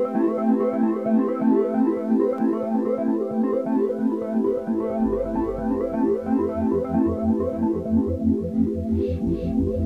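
Background music: an electronic keyboard tune with a steady, even pulse. A low bass line comes in about five seconds in.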